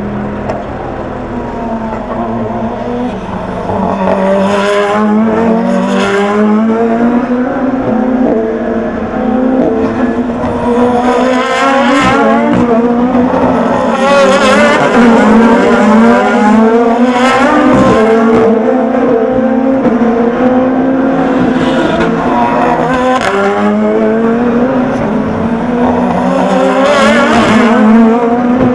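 A stream of Super GT race cars braking hard into a chicane, several at a time: each engine note falls through rapid downshifts, then rises again as the car accelerates away.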